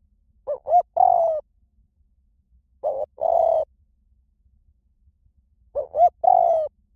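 Spotted dove cooing in three phrases about two and a half seconds apart. Each phrase is one or two short coos followed by a longer, drawn-out coo.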